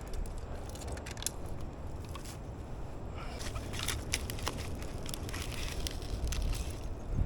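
Small fire of dry sticks crackling and snapping irregularly while still being coaxed alight, over a low rumble of wind on the microphone.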